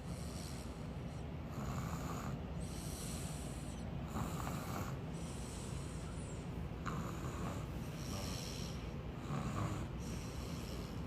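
A little girl snoring in her sleep: soft snoring breaths recurring every second or two.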